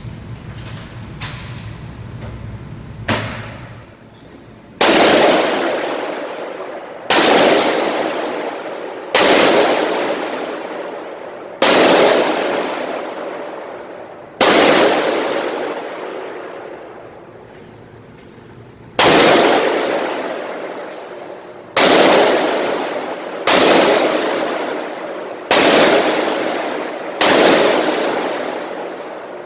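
Firearm shots fired one at a time during target shooting, about ten in all, spaced two to four seconds apart, each a sharp crack trailing off in a long echo. A lower steady hum and a lighter bang come before the first of these shots.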